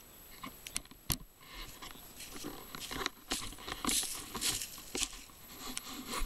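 Handling noise from a handheld camera being turned around: irregular rustling, rubbing and knocking on its microphone, busiest about halfway through.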